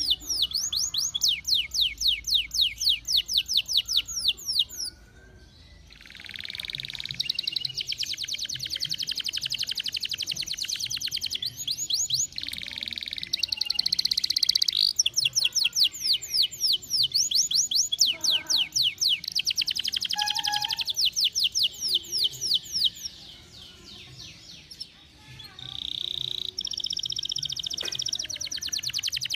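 Domestic canary singing a long song of rapid trills, each a fast run of repeated high notes, breaking off briefly twice.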